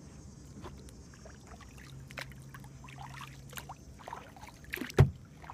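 Kayak paddle dipping into calm water: quiet splashes and dripping with scattered small knocks, and one sharp, loud knock about five seconds in.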